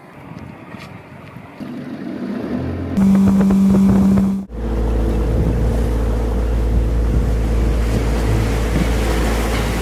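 Mercury outboard motor on a Tracker fishing boat running under way at speed, with wind buffeting the microphone and water rushing past the hull. In the first half a loud steady engine drone is heard. It cuts off suddenly about halfway through into the low rumble of the boat under way.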